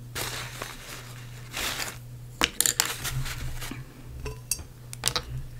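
Short clinks and knocks of glassware, with brief rubbing and scraping, as a glass mug and craft supplies are handled on a tabletop; a steady low hum runs underneath.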